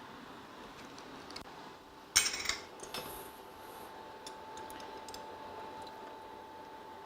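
A short clatter of kitchenware about two seconds in, then a single click, as a cook handles utensils and containers. A faint steady high tone sets in right after the click.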